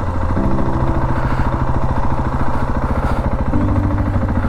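Husqvarna 701 Enduro's single-cylinder engine running at low revs. Its pitch steps up about half a second in and drops back near the end.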